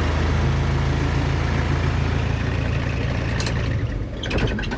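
Isuzu NPR truck engine idling steadily just after starting, with a few short clicks near the end.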